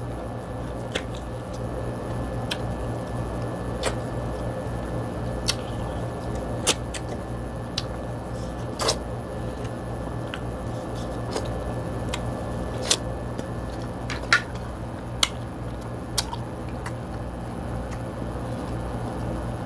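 Mouth sounds of eating corn on the cob and king crab: chewing and wet lip smacks, with sharp clicks scattered irregularly, over a steady low hum.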